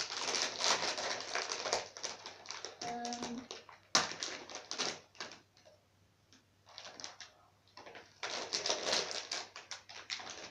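Crinkly foil-lined plastic packaging being torn open and crumpled by hand, coming in bursts of dense crackling, with a sharp snap about four seconds in.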